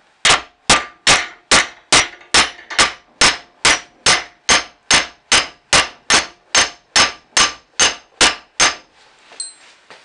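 A steel hammer rapping steadily on a stuck hinge pin of a cast-steel 1967 Mustang lower door hinge held in a bench vise. The blows come about two and a half a second, each with a short metallic clang, and stop shortly before the end. The blows are held back so as not to bend or snap the tight pin inside the hinge.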